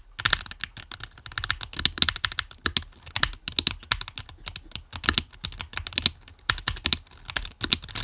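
Typing on a Win60 HE keyboard with a plastic case: a fast, uneven run of keystroke clacks.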